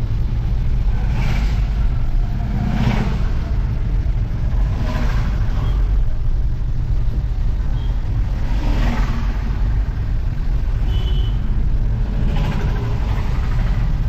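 A car moving on a wet road, heard from inside the cabin: steady low road and engine rumble, with hissing swells of tyres on wet tarmac every few seconds.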